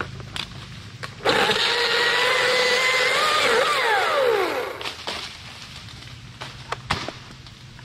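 Husqvarna 540i battery chainsaw running at full speed with a steady electric whine for about three seconds, then winding down in a falling whine once the trigger is released. A few sharp knocks follow.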